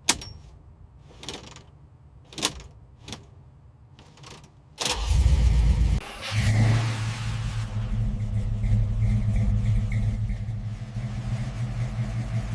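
Several sharp clicks in near-quiet, then the 1970 Dodge Charger's engine starts about five seconds in with a burst of low rumble and settles into steady running.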